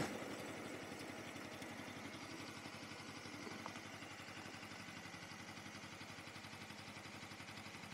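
Suzuki V-Strom 250's parallel-twin engine idling at a stop, faint and steady with a light regular pulse.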